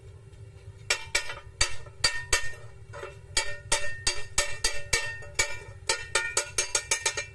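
A hammer striking a 1-inch steel pipe over and over, about four blows a second in an irregular rhythm. Each blow rings the pipe at the same few clanging pitches, beginning about a second in and stopping abruptly.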